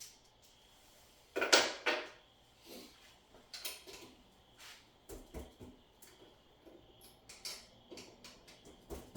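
Handling noises while something is unpacked: a loud rustle about a second and a half in, then scattered light clicks and knocks.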